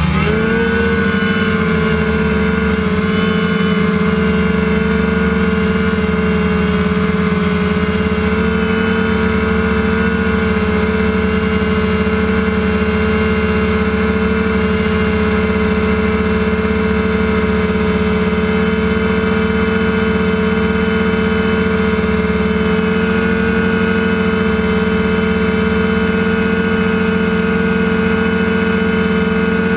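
Multicopter's electric motors and propellers whining steadily while hovering, heard from the camera on the aircraft itself; the pitch settles just at the start, then holds steady.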